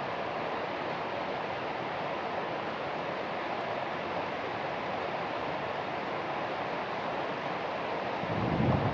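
Rain falling steadily, an even hiss. A low rumble swells in near the end.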